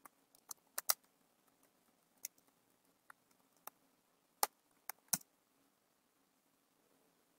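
Computer keyboard keystrokes as a terminal command is typed: a dozen or so separate, irregularly spaced key clicks, stopping a little after five seconds in.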